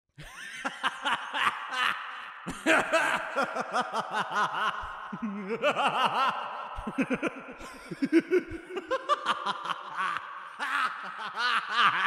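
A voice laughing a crazed, creepy Joker-style laugh in rapid 'ha-ha-ha' pulses that swoop up and down in pitch and climb higher about halfway through.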